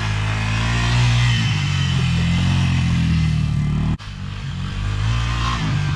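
ATV engine running hard at steady revs, its note shifting about a second and a half in and briefly cutting out sharply near two thirds of the way through.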